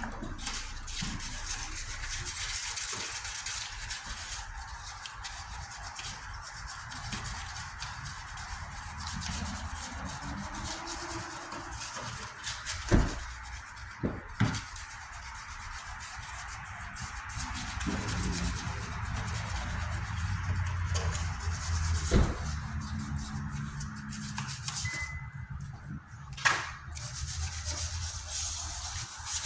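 Hand wet sanding of the painted steel tailgate panel: sandpaper rubbing over the paint in steady strokes, with a few sharp knocks near the middle and one near the end.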